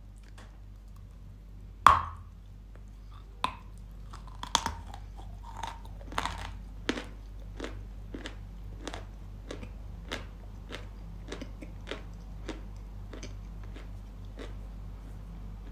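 Close-miked bite into a dry lump of Yampol chalk coated in paste, a single loud crunch about two seconds in, followed by crunchy chewing. The chewing starts irregular, then settles into even chews just under two a second.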